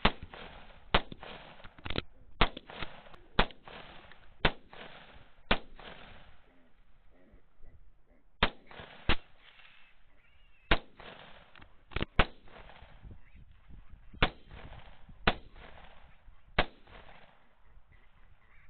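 Rifle fire: about fifteen sharp shots, each with a short echo trailing after it, in irregular strings roughly a second apart, some in quick pairs, with a pause of about three seconds about a third of the way through.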